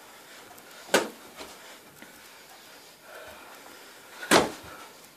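Two sharp thuds of boxing-glove punches landing during sparring, about three and a half seconds apart, with a fainter knock just after the first.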